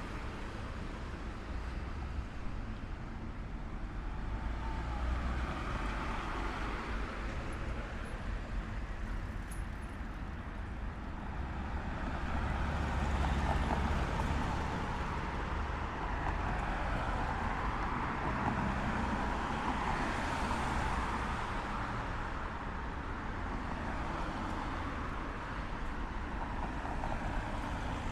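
City street traffic noise: a steady rumble of passing cars and other road vehicles, swelling twice as vehicles go by nearby, once about halfway through and again a few seconds later.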